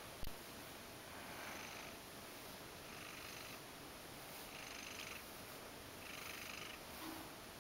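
Ragdoll cat purring softly while a wire pin brush is drawn through its fur, the sound coming in gentle pulses about every second and a half. A single sharp tap just after the start.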